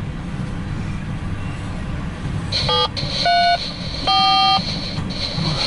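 Empty coal hopper cars rolling past on the rails with a steady low rumble. About halfway through come three or four short, pitched tones, each at a different pitch and louder than the rumble.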